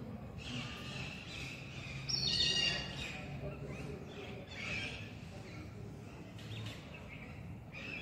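Hornbill calling: a few short, harsh, high-pitched calls, the loudest about two seconds in and lasting under a second, another a little before five seconds.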